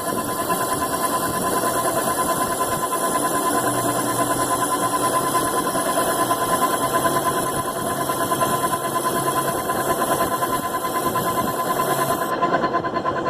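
Metalworking machine tool running steadily during machining, a continuous mechanical drone with a steady high whine. A low hum joins in a few seconds in and fades near the end.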